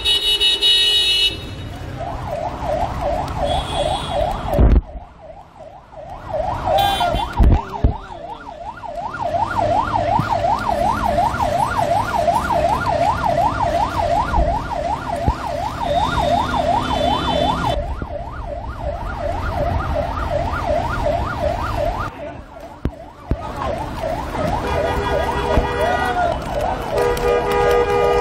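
A yelping siren wailing rapidly up and down, about three sweeps a second, breaking off briefly twice.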